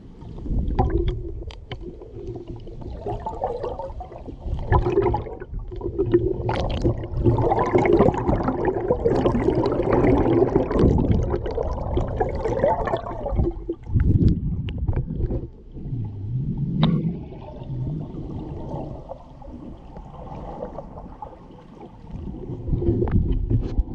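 Muffled underwater gurgling and bubbling of water moving around a submerged camera, swelling and fading irregularly, with scattered sharp clicks.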